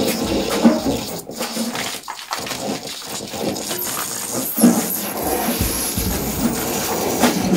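Live improvised experimental music: a busy, unsteady texture of small clicks, rattles and scrapes, with low thuds in the second half.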